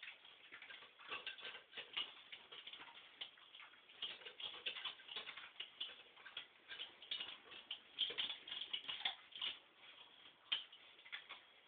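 Two Akita puppies eating from metal bowls: a quick, irregular clicking and ticking of food and teeth against the bowls, with a few louder clicks.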